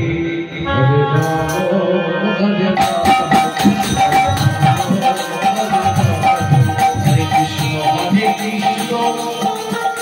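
Bengali kirtan music without singing. For about the first three seconds only held, sustained notes sound; then drums and jingling percussion come back in under a steady melody line.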